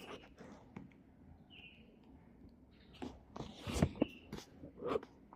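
Merch packaging being handled: a quiet stretch, then from about three seconds in a run of short taps and soft crinkling rustles.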